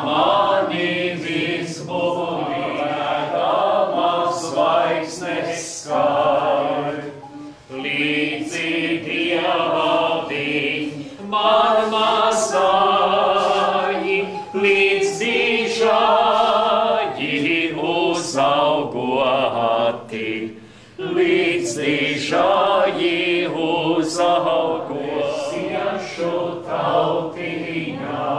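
Small mixed group of men's and women's voices singing a Latvian folk song without instruments, in long sung phrases with short pauses for breath.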